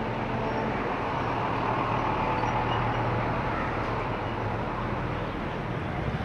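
Steady street traffic noise: the running hum of passing vehicles.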